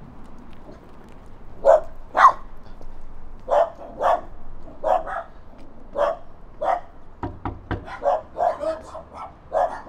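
Small curly-haired dog barking repeatedly: short sharp barks, starting about two seconds in, often in pairs, then coming faster near the end. A quick cluster of sharp taps about halfway through.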